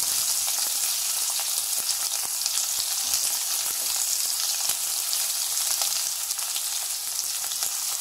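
Chopped red onions frying in hot oil in a pan, just added: a steady high sizzle sprinkled with fine crackles.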